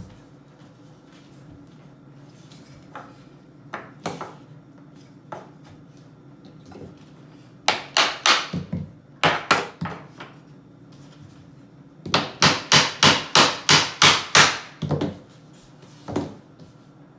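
Claw hammer knocking laminate flooring planks tight into place. First a few scattered knocks, then a quick cluster of blows about eight seconds in, and a run of about ten rapid, even blows, some four a second, after about twelve seconds.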